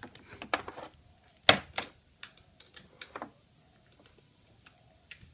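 Drill chuck of a Bosch GSB 500 RE hammer drill being turned by hand, giving a string of small clicks and scrapes. One sharp click about one and a half seconds in is the loudest.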